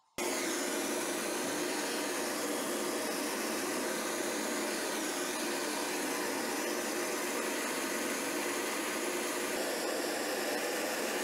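Hose-fed gas torch burning with a steady, even rush of flame as it heats a steel knife blade for hardening; the sound cuts in abruptly just after the start.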